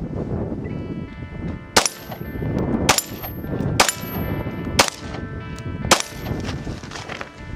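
Glock 17 9mm pistol fired five times, about one shot a second, each shot followed by the ringing of a struck steel plate target.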